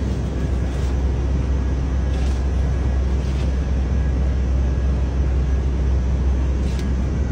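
Steady low drone of site machinery running, with a few faint knocks as the blast hoses are handled.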